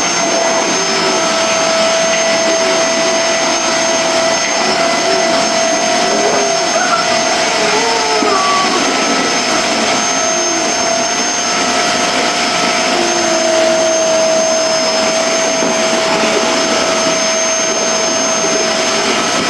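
Vacuum cleaner running steadily over a laminate floor, a constant rushing noise with a steady whine, faint voices underneath.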